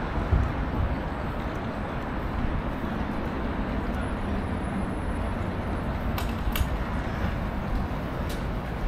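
Steady outdoor city background: a low rumble and hiss, with a few sharp clicks about six and eight seconds in.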